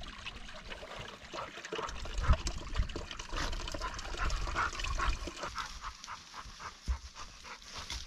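Dog panting close by, with water splashing and scattered clicks and thumps of movement.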